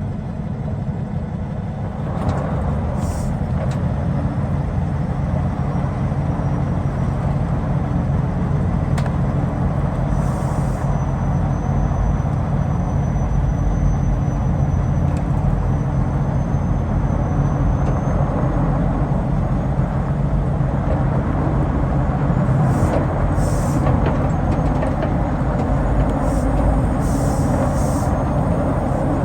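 Semi-truck diesel engine running steadily, a low even drone, with a few short hisses. The driver suspects a bad fuel injector is making it run rough.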